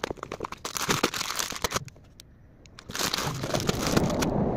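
Plastic bags of wrapped sweets and snacks crinkling and rustling as they and biscuit boxes are handled and packed into a suitcase. There is a lull of about a second midway.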